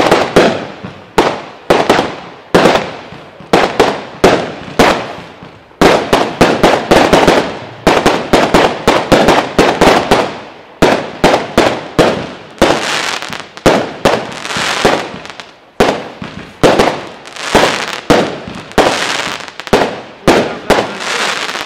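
A consumer fireworks battery (cake) firing shot after shot, each sharp bang trailing off. About two shots a second at first, coming thicker from about six seconds in.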